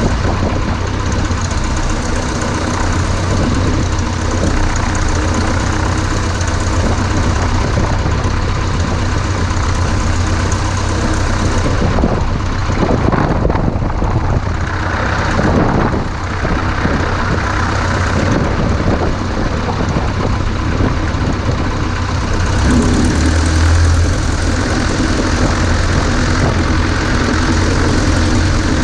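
Cessna 140A's flat-four engine and propeller droning steadily in flight, with a brief change in tone partway through.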